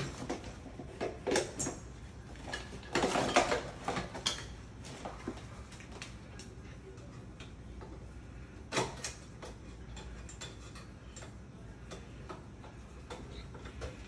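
Screwdriver and metal mortise-lock hardware being worked in a door edge: scattered small clicks and taps, a burst of louder knocking a few seconds in, and one sharp knock past the middle.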